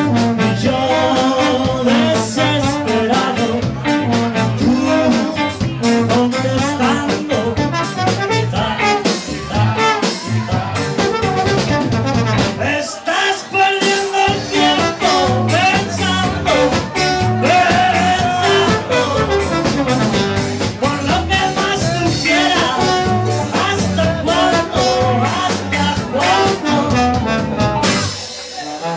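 Live band playing an upbeat number, with a trombone carrying the lines over electric guitars and a steady beat. The music dips briefly about halfway through and again near the end.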